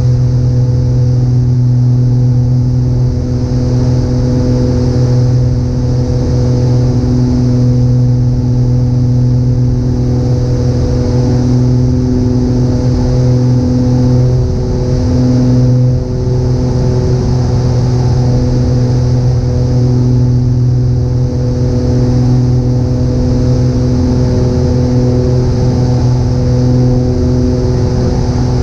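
Twin piston engines and propellers droning steadily, heard inside the cockpit: a constant low hum with its overtones over a steady rushing noise.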